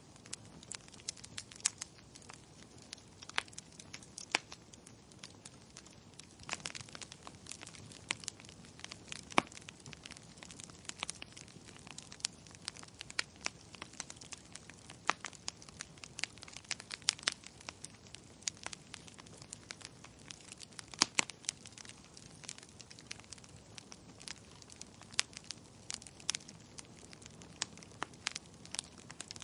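Wood fire burning in a fireplace: irregular sharp crackles and pops, several a second, over a low steady hiss.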